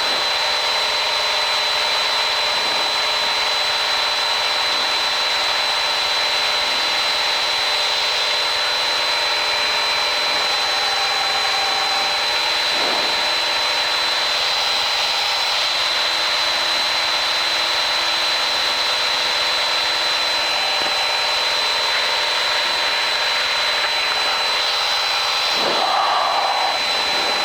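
Piper PA-28-161's four-cylinder Lycoming engine and propeller droning steadily in the cockpit during the climb after takeoff, with a constant high-pitched whine over the noise.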